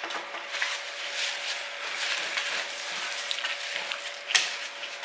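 A fork stirring and picking through a takeout salad in its container: a steady crackly rustle of leaves and plastic with small clicks, and one sharper click about four and a half seconds in. A faint steady hum runs underneath.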